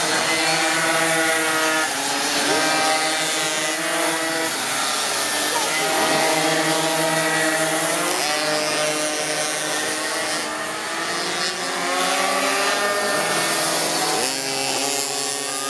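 Several minimoto (pocket bike) engines buzzing at high revs, their pitch rising and falling as the riders brake and accelerate through the corners.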